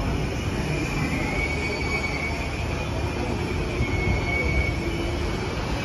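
Rubber-tyred electric articulated shuttle tram moving off slowly: a low steady rumble with a thin high whine that wavers in pitch and comes and goes.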